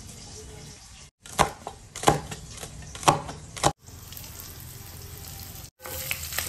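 Pork pieces and garlic sizzling in their own rendered fat in a stainless steel kadai as they dry-fry. In the middle come four sharp metallic clanks against the pan, and the sizzle grows louder near the end as the pork is stirred with a metal spatula.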